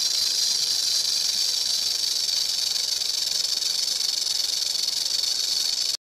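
Rattlesnake rattling its tail as a warning: a loud, steady, high buzz that cuts off suddenly near the end.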